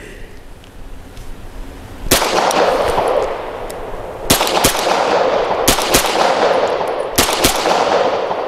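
Vz Skorpion pistol in .380 ACP firing semi-automatically. There is a single shot about two seconds in, then three quick pairs of shots, each trailing off in echo.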